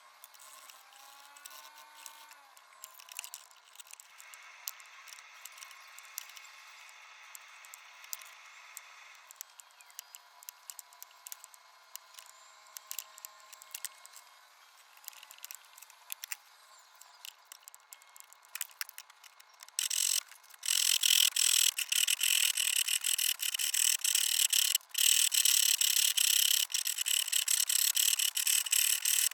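Quiet handling with scattered light clicks, then about twenty seconds in a hand tool starts rasping on metal in rapid, even back-and-forth strokes, loud and steady.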